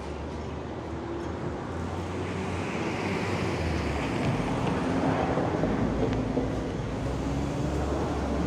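Street noise: traffic running, with wind buffeting the microphone, swelling louder from about two seconds in and easing off towards the end.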